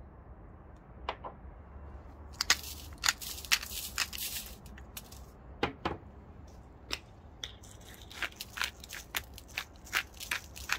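Hand mills grinding sea salt and then black pepper over the fish: irregular runs of sharp, crunchy clicks starting about two seconds in.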